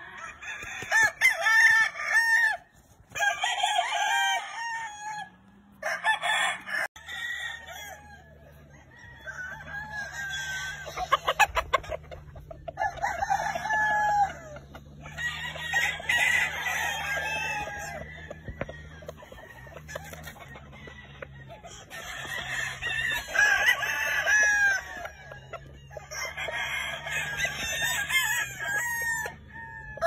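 Gamefowl roosters crowing again and again, one crow after another throughout, with some clucking.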